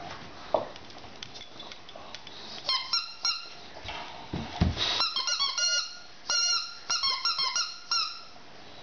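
A dog's squeaky toy ball squeaking over and over as a boxer puppy chews it, in quick runs of short high squeaks starting about three seconds in. A low dull thump comes about halfway through.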